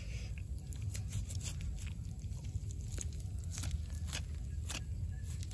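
Knife cutting through the skin and meat of a grilled pig's head, giving irregular small clicks and crackles over a steady low rumble.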